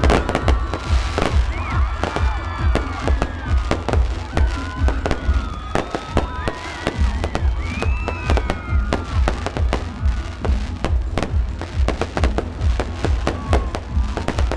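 A fireworks display going off continuously: dense, rapid bangs and crackles from bursting shells, over music played loud for the pyromusical show, with curving pitched sounds rising and falling through it.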